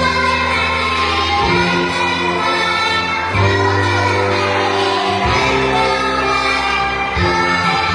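A group of women and young children singing a children's song together over instrumental accompaniment, with a steady bass line changing note every second or two.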